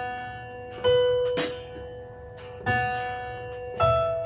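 Keyboard chords struck three times, each ringing out and fading, over a held note, with a sharp click about a second and a half in.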